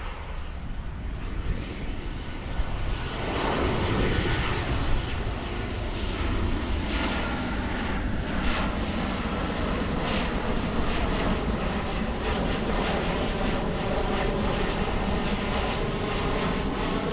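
Jet airliner passing low overhead, its engine roar swelling about three seconds in and staying loud, with faint tones that slowly shift in pitch as it goes by.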